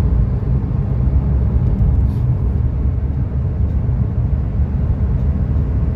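Steady low road rumble of a car driving, heard inside its cabin: engine and tyre noise.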